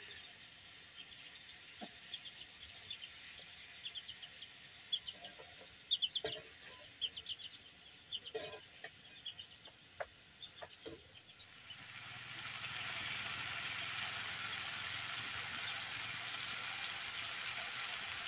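Chickens clucking with short high chirps, with a few light knocks of a metal ladle against a pan. About twelve seconds in, a steady sizzle takes over and is the loudest sound: fish curry with onion leaves frying in a kadai.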